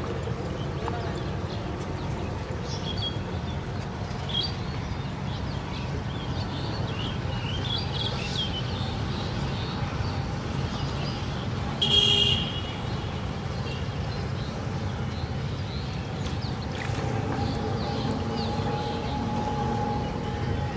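Outdoor ambience: a steady low rumble with birds chirping through the first half, and a brief loud horn-like toot about twelve seconds in.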